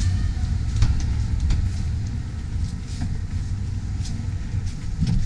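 A low, uneven rumble with several light clicks and knocks as a Jeep's driver door is handled and someone climbs in.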